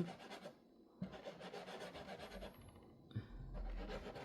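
Faint rubbing and scraping noise, with a brief lull and a small click about a second in.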